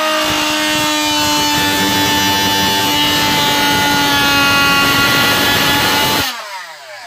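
Oscillating multi-tool cutting into MDF, running at a steady buzzing pitch with the rasp of the blade in the board. It is switched off about six seconds in, and the pitch falls as the motor winds down.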